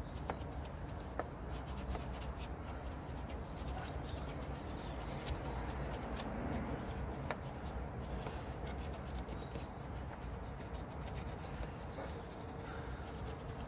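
Small detailing brush scrubbing a wet alloy wheel coated in iron fallout remover: a steady soft rubbing with scattered light clicks as the brush catches the spokes and wheel nuts.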